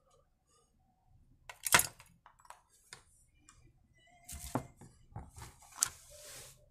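Tools and parts being handled and set down on a workbench: one sharp, loud knock about two seconds in, scattered small clicks, then a run of knocks, clinks and rustling in the last few seconds.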